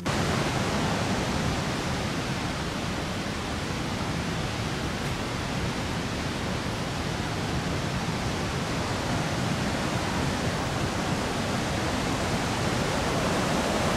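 Steady rushing roar of the Niagara River rapids, white water pouring over the rocks above the falls, growing slightly louder near the end.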